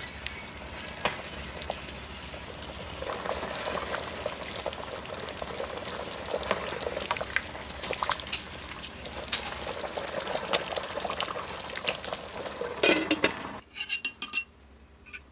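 Beef curry in coconut milk bubbling at a boil in a large steel pot, with a metal ladle stirring it and knocking and scraping against the pot, loudest just before the sound drops away. After that come a few light clinks of the ladle on a plate.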